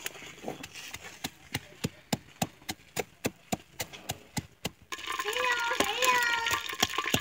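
Wooden pestle pounding garlic, ginger and raw turmeric in a clay mortar, knocking steadily about three times a second. About five seconds in, voices join in the background.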